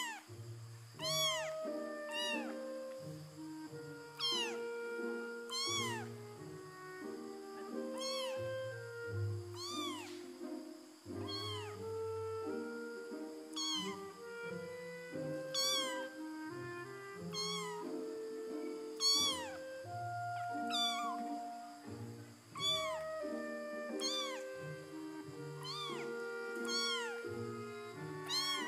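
Kittens mewing over and over, each mew a short, high call that rises and falls in pitch, about one every second or two. Background music with held notes plays underneath.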